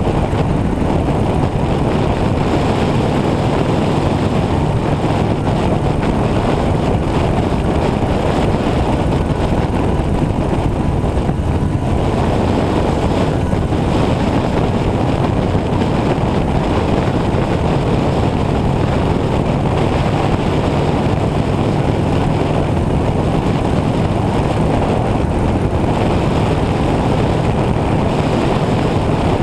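Motorcycle cruising at a steady speed: the engine runs evenly at constant pitch under a heavy, steady rush of wind and road noise on a camera mounted low by the front wheel.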